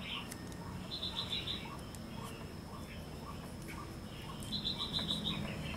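A songbird sings a fast run of about six bright, clipped notes twice: once about a second in and again near the end. Under it runs a steady high thin tone and a faint low hum.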